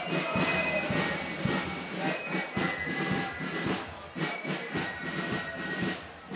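Outdoor street parade of a marksmen's club: band music with many irregular sharp knocks over crowd noise.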